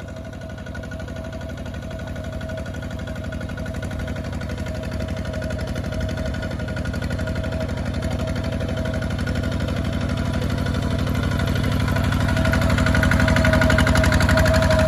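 Kubota walking tractor's single-cylinder diesel engine chugging steadily under plowing load, growing louder throughout as the machine comes closer, with a steady whine over the firing beat.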